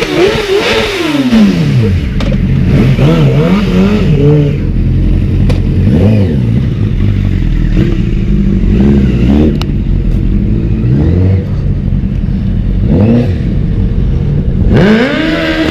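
Car engine revving hard, its pitch climbing and dropping again and again, with the biggest sweeps at the start and near the end.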